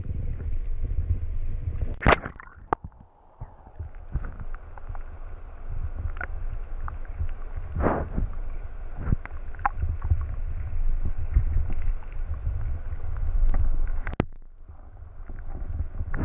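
Muffled low rumble of stream water heard through an underwater camera housing, with scattered knocks and taps as eels nose and bump against the camera. The sharpest knocks come about two seconds in, around the middle and near the end.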